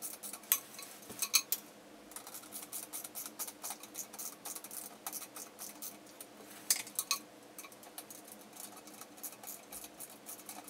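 Husky Torx screwdriver tightening the screws that hold LED panels to a light tent's frame: a run of small clicks and scrapes, with a few sharper clicks about half a second in, around a second and a half, and near seven seconds.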